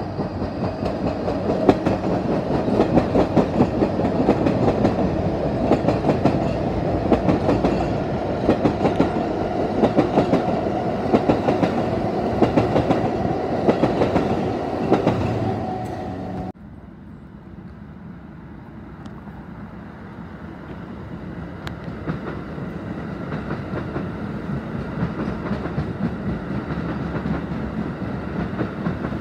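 Kawasaki R160B subway train with Siemens propulsion passing close: wheels clatter over the rail joints in a quick steady beat, over a steady motor hum. About 16 seconds in it cuts abruptly to another train, quieter and farther off, growing louder toward the end.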